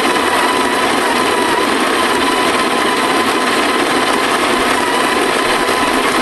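The DeLonghi DCM900 coffee maker's built-in grinder running steadily, its motor whining as it grinds beans for a four-cup brew.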